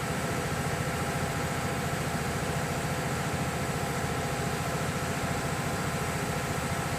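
Brake lathe running steadily as it turns a brake drum for skimming: an even machine hum with a fast, regular low pulsing.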